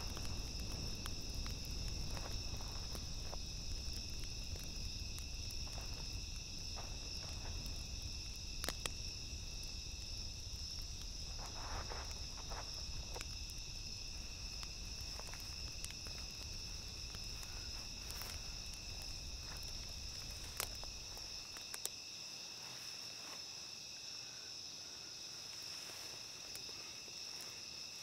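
A chorus of crickets, a steady high-pitched chirring, with a few scattered clicks and rustles and a low rumble underneath that drops away about three-quarters of the way through.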